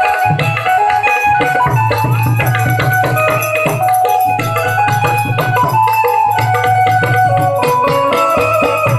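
Instrumental interlude of Gujarati santvani devotional folk music: a melody instrument plays a stepping tune over steady drum and jingling rattle-like percussion.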